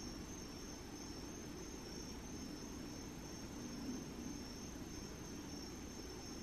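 Crickets chirping outdoors at night, a faint, steady pulsing trill, over a low background rumble.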